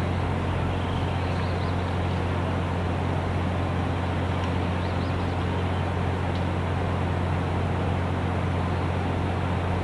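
A steady low mechanical hum under an even hiss, unchanging throughout.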